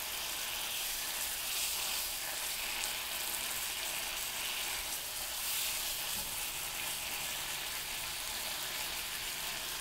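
Marinated chicken thigh sizzling steadily in a nonstick frying pan as its second side sears.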